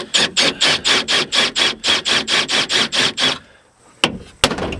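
Rapid, even metal strikes, about six a second for some three seconds, then a short pause and a few separate knocks near the end: a tool hammering at a steel rivet that holds a truck's window regulator in the door.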